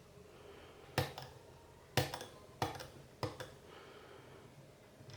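Sharp clicks of a disc-detainer pick working the discs of a motorbike disc lock: four distinct clicks about a second apart, with a few fainter ticks between.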